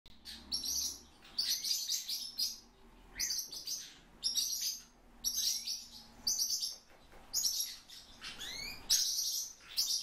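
A pet fieldfare calling repeatedly: a series of short, high chirping calls, roughly one a second.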